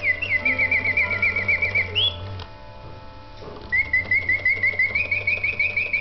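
Bontems clockwork singing-bird movement with all-brass parts, its bellows blowing the bird-song whistle in rapid warbling trills of about eight notes a second, with an upward swoop. The song breaks off for about a second, then resumes and steps up a little in pitch, over a low hum of the running mechanism. The movement has been adjusted and repaired and sings well.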